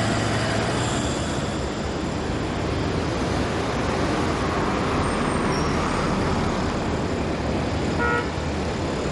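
Street traffic: a steady wash of car noise from vehicles driving past, with a short pitched tone about eight seconds in.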